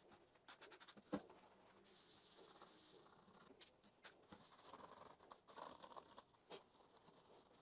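Faint rubbing of a paper towel wiping a MacBook Pro's screen, keyboard and aluminium case, with scattered light clicks and taps and one sharper knock about a second in.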